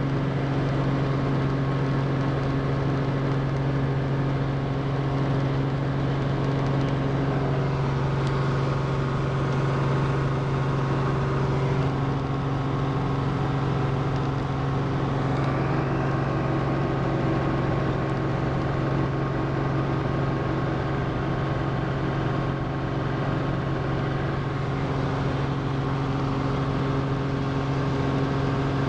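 Robinson R44 II helicopter's six-cylinder Lycoming engine and rotors, heard from inside the cabin as it takes off and climbs. A steady, loud drone with a strong low hum.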